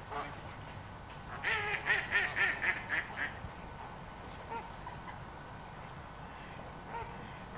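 A flock of American flamingos honking: a quick run of about eight calls between about one and a half and three seconds in, then a few faint single calls.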